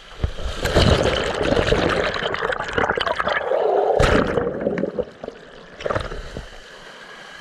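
Sea surf washing over a rocky shoreline, foaming water rushing right at the microphone as it dips into the wash. The rush is loudest for the first five seconds, with a sharp surge about four seconds in, then eases, with one more splash near six seconds.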